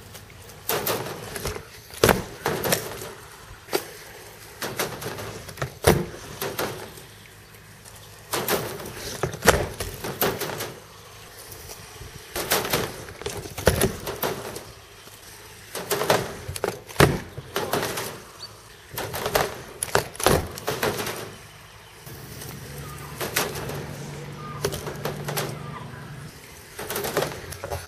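Caster board on a plywood quarter pipe: wheels rolling and rattling on the wood, with repeated sharp clacks and knocks of the board striking and landing on the ramp every second or two. A low steady hum joins in for a few seconds near the end.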